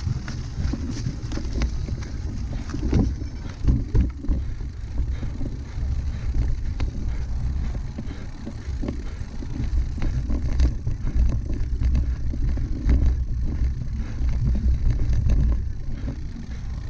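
Wind rumbling on the microphone over the running rattle of a cyclocross bike on rough ground, with a few sharp knocks from bumps.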